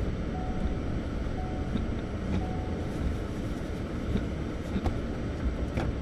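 Car driving on a snowy road, heard from inside the cabin as a steady low rumble of engine and tyres. A short beep repeats about once a second and stops about three seconds in, and there are a few faint clicks later on.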